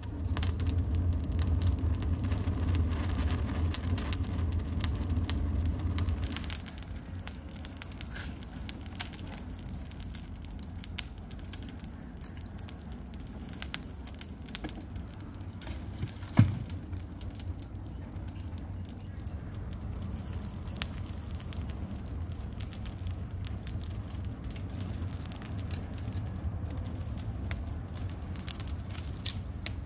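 Dry brushwood burning fiercely in a clay tandoor: a low rush of flames, loudest for about the first six seconds, with scattered crackles and snaps throughout and one sharp pop about sixteen seconds in.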